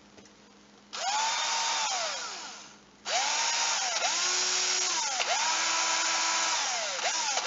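Black & Decker Pivot Plus cordless drill, running on two LG HE2 18650 lithium-ion cells, run on the trigger. Its motor whine spins up about a second in, holds, and coasts down, then starts again about three seconds in and dips and rises several times as the trigger is eased and squeezed.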